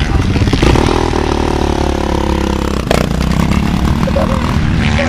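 Several motocross dirt-bike engines running, one idling steadily through the first half, with a short sharp crack about three seconds in.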